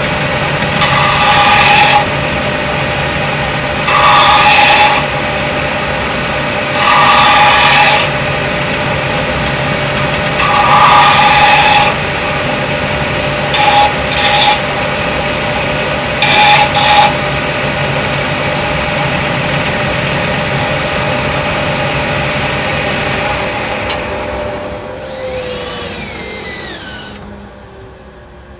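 A power tool's electric motor running steadily, with louder gritty bursts about every three seconds as wood is pressed against it. Near the end it is switched off and winds down with falling pitch.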